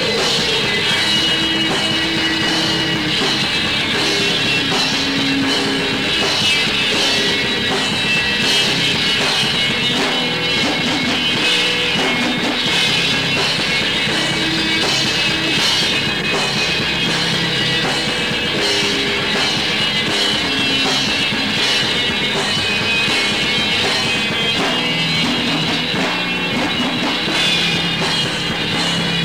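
Death/doom metal band playing: guitars, bass guitar and a drum kit in a dense, steady wall of sound, from a 1993 rehearsal recording.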